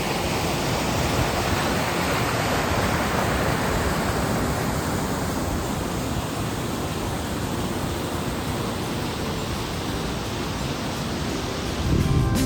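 Steady, even rushing noise, with guitar music coming in right at the end.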